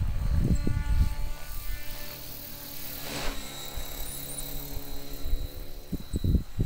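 Oxy 4 Max electric RC helicopter flying overhead: a steady whine of motor and rotor blades made of several stacked tones. Gusts of wind rumble on the microphone at the start and again near the end.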